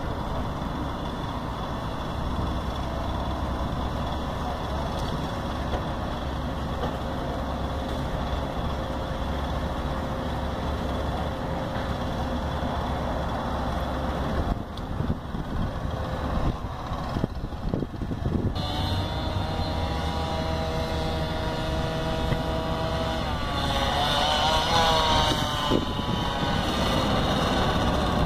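Diesel engines of hydraulic excavators running steadily, with a car driving past about halfway through. Near the end an engine's pitch climbs and wavers as a machine works.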